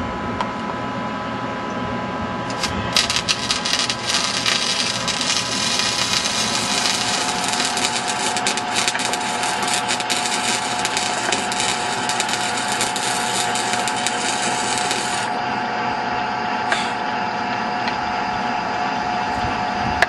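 Arc welding on steel stairs: a crackling arc starts about three seconds in and cuts off abruptly some twelve seconds later, over a steady machine hum that runs throughout.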